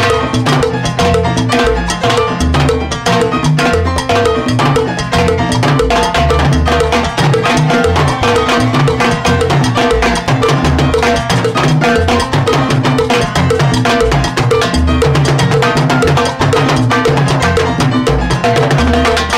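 Live salsa band playing, with a timbales solo: rapid stick strikes on the timbales and the mounted cowbell over the band's bass line.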